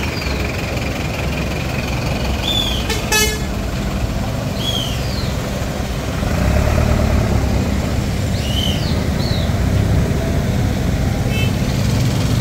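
Heavy diesel engine running steadily, getting louder about six seconds in. A short vehicle-horn toot sounds about three seconds in.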